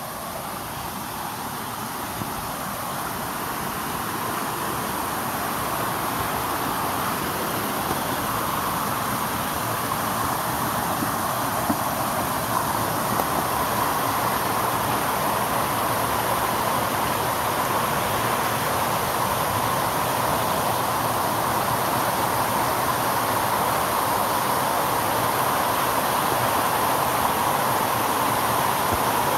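Creek water rushing over rock ledges and down a small waterfall cascade, a steady rushing noise that grows gradually louder over the first half and then holds.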